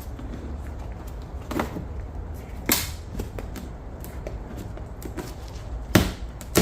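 A few sharp clicks and knocks of plastic and metal door parts being handled and pushed through inside a pickup's rear door, the loudest about two and a half seconds in and another near the end, over a steady low hum.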